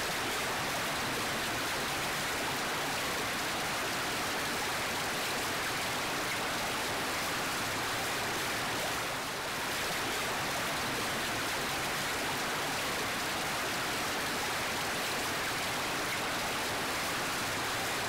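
Steady running water, an even rush of splashing water with a slight dip in level about nine seconds in.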